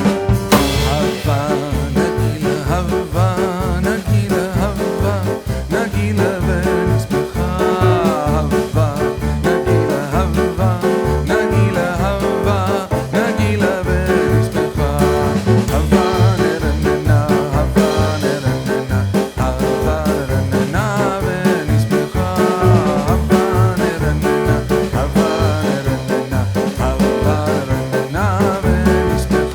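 Background music with a steady beat and a wavering melody line, in a swing-like style.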